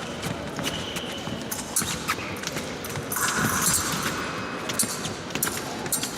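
Épée bout in progress: quick footwork thumps and sharp clicks and clinks of blades meeting, with a brief hiss about three seconds in.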